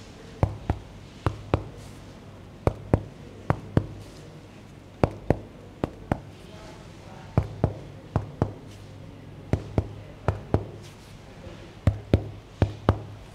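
Fingers tapping on a patient's back in chest percussion: sharp double knocks, each pair about a quarter second apart, in regular groups every two seconds or so, as if comparing left and right at each level. A low steady hum runs underneath.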